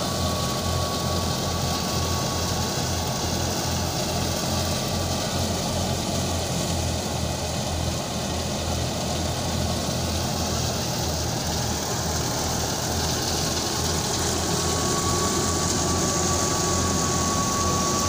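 Tractor-driven wheat thresher running steadily under load as sheaves are fed in: a constant engine drone with a fast low pulsing. A thin high whine fades out about a third of the way in and comes back near the end.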